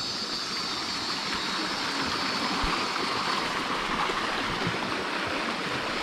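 Small shallow stream flowing over rocks: a steady, even rush of water.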